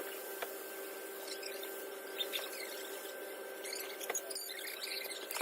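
Sandpaper scraping over cured body filler in short, squeaky strokes, with a few light clicks over a faint steady hum.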